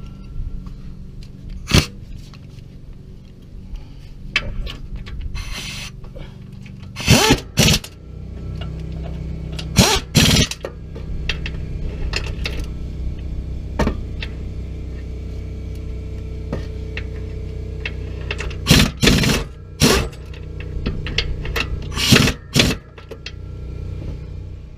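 Air wrench running bell housing bolts into a car's transmission bell housing in a series of short bursts, with a steady low mechanical hum underneath.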